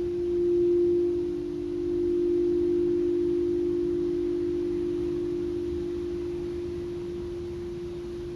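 Singing bowl ringing with a steady low hum. Its loudness swells and ebbs at first, then settles into a slow, even fade.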